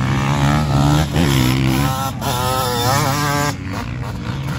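Motocross bikes racing on a dirt track, their engines revving up and down as the riders work the throttle and shift through the corners; a higher-pitched engine wavers up and down from about two seconds in, and the sound drops a little after three and a half seconds.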